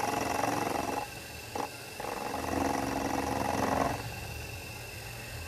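Small bench machine's spindle motor running with a steady pitched hum. It stops about a second in, runs again from about two to four seconds, and then only a low hum is left.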